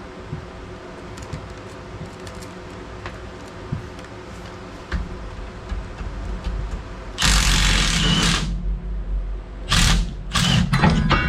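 Power impact wrench hammering on a suspension bolt during a front-end teardown: one loud burst of about a second and a half, then three shorter bursts near the end.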